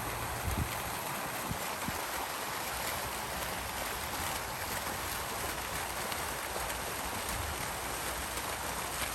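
Outdoor water fountain splashing steadily, falling water making an even, continuous rush.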